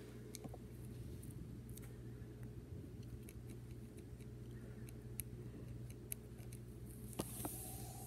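Faint scratching and scattered light ticks of a ballpoint pen drawing on lined paper, over a steady low hum.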